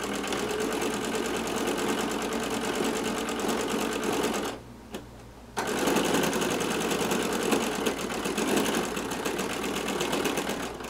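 Home sewing machine stitching fast and steadily in free-motion embroidery through a baseball cap. It stops for about a second near the middle, then starts up again.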